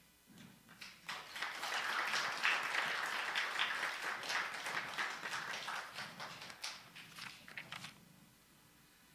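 A small audience applauding. It starts about a second in and dies away near the end.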